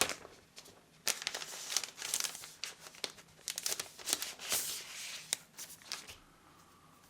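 Packaging wrap crinkling and tearing in irregular rustles as it is pulled off a new laptop, going quiet near the end.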